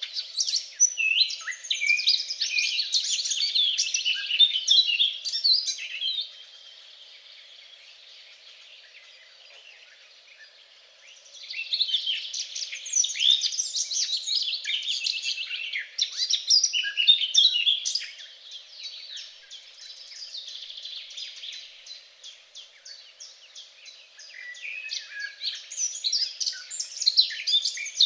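Several songbirds singing at once, a dense chorus of chirps and trills that fades to faint song for about five seconds near the first third and swells again.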